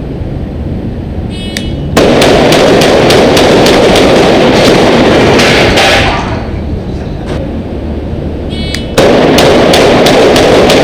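A short electronic start beep, then about four seconds of rapid, overlapping shotgun fire as shooters race each other, loud enough to saturate the recording. A second beep comes near the end, and the firing starts again.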